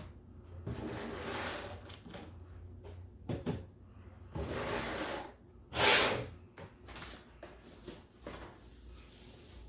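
Handling of plastic miniatures and their packaging on a tabletop: several rustling swishes, the sharpest about six seconds in, and a few light knocks as figures are set down.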